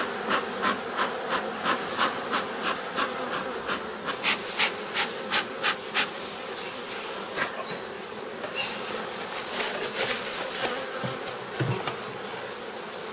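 Honeybees buzzing over an open hive, with a regular run of short puffs, about three a second, for the first six seconds: a bee smoker's bellows being pumped over the frames to drive the bees down.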